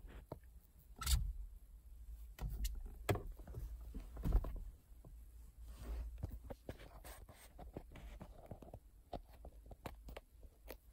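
Irregular clicks, knocks and rustles of things being handled, the loudest knocks about a second in and around three and four seconds in, over a low steady rumble.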